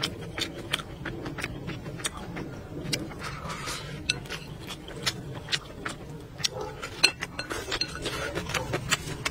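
Close-up eating sounds: chewing and lip smacks, with chopsticks clicking against a porcelain plate. Near the end, slurping the leftover sauce straight from the plate's rim.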